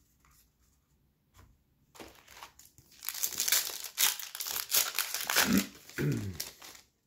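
Plastic wrapper of a Topps Pro Debut baseball card pack torn open and crumpled by hand. After a few faint handling ticks, dense crinkling sets in about three seconds in and lasts some three seconds.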